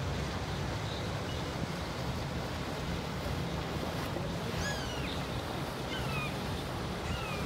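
Outboard-powered center-console boat running past at cruising speed: a steady low engine rumble mixed with wash and wind. Three short falling whistled calls sound about halfway through and near the end.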